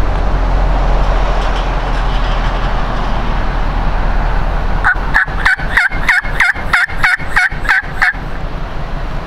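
Turkey calling: a rapid run of about a dozen sharp notes, roughly four a second for about three seconds, starting about five seconds in, over a steady low hum.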